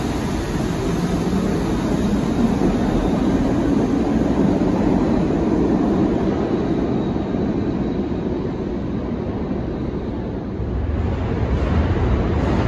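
Subway train pulling out of an underground station: a steady rumble of wheels on rails that eases off as it leaves. A deeper low rumble swells near the end.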